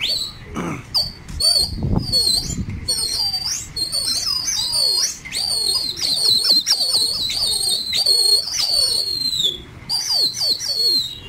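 Shrill human whistling: a quick run of rising and falling notes, nearly unbroken through the middle of the stretch with a short break near the end. It is the whistling that pigeon flyers use to work a flock in the air.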